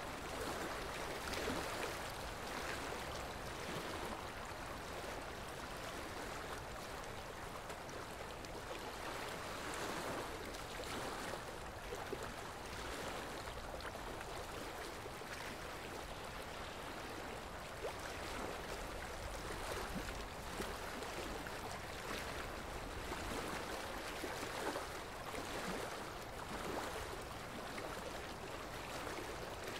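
Steady rushing noise of flowing water, like a stream, running evenly with small ripples in level.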